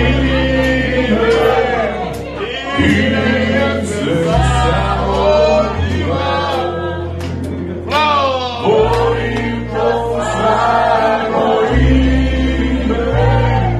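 A group of men singing a sports club anthem together, accompanied by an amplified nylon-string acoustic guitar, with sustained low keyboard bass notes changing pitch every couple of seconds.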